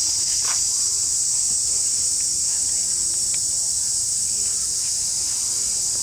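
Dense, steady, high-pitched insect chorus droning without a break, with a few faint rustles and ticks under it.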